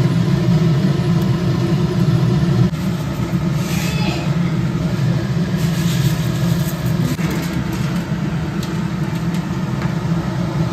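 A steady low mechanical hum, like a motor running. About six seconds in, a light hiss of sesame seeds being poured into a dry iron wok.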